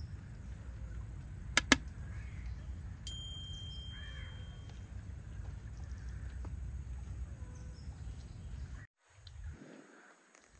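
Outdoor forest ambience: a steady low rumble with faint bird calls, two sharp clicks a little under two seconds in and a short ringing ding about three seconds in. The sound drops almost to silence for the last second or so.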